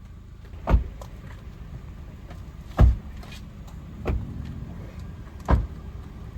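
Car doors being shut: four dull thumps spaced a second or two apart, over a low steady rumble.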